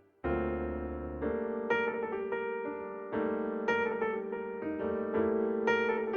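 Background music: a piano or electric piano playing a slow melody over held chords, with notes struck every half second or so.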